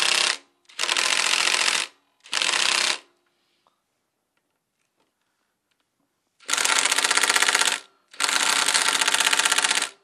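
Impact driver hammering in short bursts of one to two seconds, three close together, then a pause of about three seconds and two more. It is trying to break loose a stiff bolt and lacks the power to free it.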